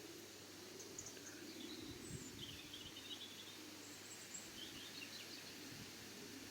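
Quiet outdoor background: small birds chirping in short phrases several times, over a low steady hum.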